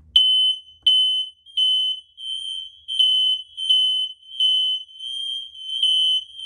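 Hardwired interconnected smoke alarm sounding on its test button: a loud, high-pitched beep repeating about every 0.7 seconds, some beeps running into one another. The alarm is working.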